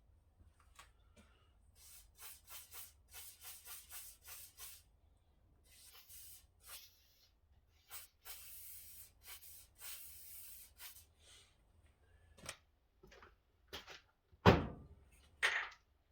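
Hand work on the metal parts of an old power hacksaw being dismantled: a run of short scraping strokes, then a longer scrape. Near the end comes a loud sound from the person's throat.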